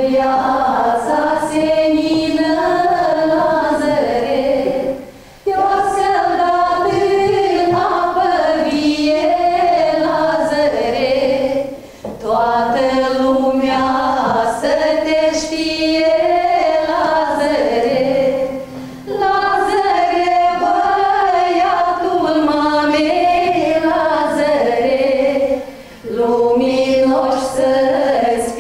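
A group of women's voices singing together in harmony, in phrases of about six seconds, each broken by a short pause for breath.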